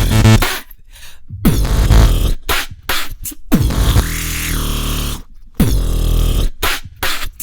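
Electronic dubstep music made from triggered loops on the Launchpad app, with chopped stop-start bass and synth stabs, sudden gaps, and a pitch sweep that rises and falls about four seconds in.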